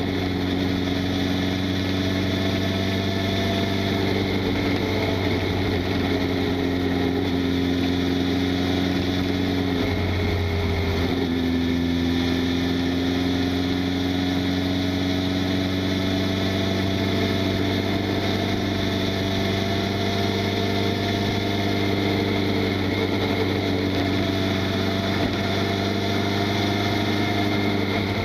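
Honda CB1000SF's inline-four engine running at steady revs. About ten seconds in its note breaks briefly and comes back a little lower, then climbs slowly.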